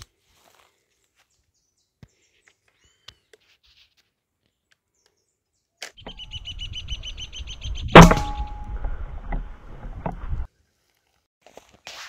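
A single sharp shot from a FOX GR1600 air rifle about eight seconds in, with a short ringing after it. It rises over a steady low rumble and a fast, high trill, and cuts off abruptly about two seconds later. Before that there are only faint small clicks.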